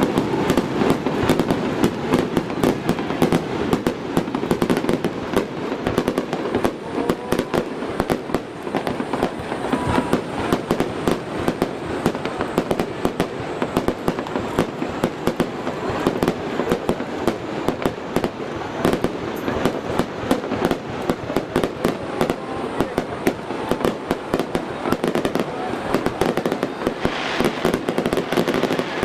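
Stadium fireworks display: many shells bursting in quick succession, a dense run of bangs and crackles with no pause.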